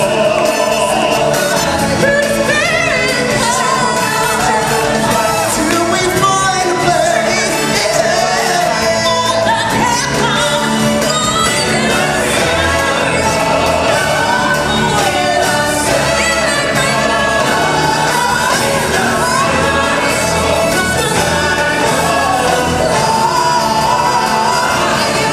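Music with singing from a live musical stage show, running at a steady loud level throughout.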